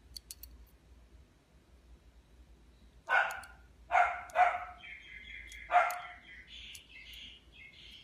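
A dog barks four times, from about three seconds in, followed by higher chirping calls. Near the start there are a few faint clicks from the pressure switch mechanism being worked by hand.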